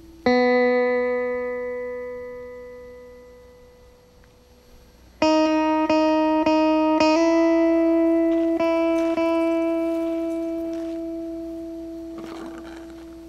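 Slow, sparse guitar music. A chord is struck and left to ring and fade for several seconds. About five seconds in comes a quick run of four plucked notes, then two more, under a held note that slowly dies away.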